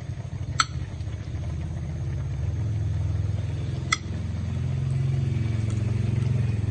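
A low, steady engine rumble, like a motor vehicle idling, that grows louder about halfway through. Two sharp clinks of metal cutlery on a ceramic plate, about half a second in and again about four seconds in, as cooked fish is picked off the bone.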